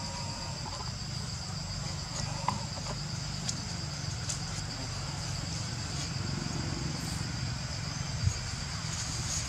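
Steady insect chorus, a high drone in two close pitches, over a low rumble. A few faint clicks and taps come through it, about two and a half seconds in and again near the end.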